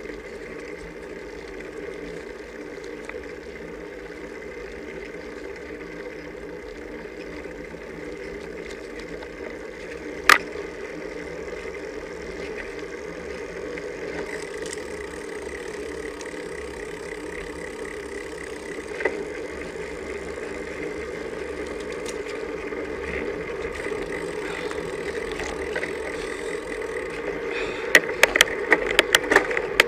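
Riding noise of a road bicycle picked up by a bike-mounted camera: steady wind and tyre hiss that grows louder as the bike speeds up. A single sharp click comes about a third of the way in, and a quick run of rattling clicks near the end.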